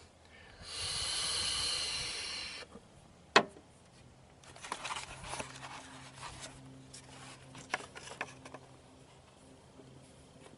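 A breath of vape vapour blown hard through a hose into the car's intake for a DIY smoke leak test: a steady hiss of air lasting about two seconds. About a second later comes one sharp click, then faint handling rustles.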